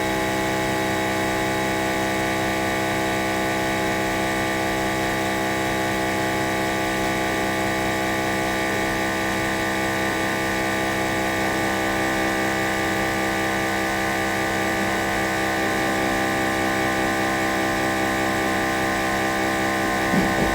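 Vacuum pump of an OM518 Plus LCD separator machine running with a steady, even hum.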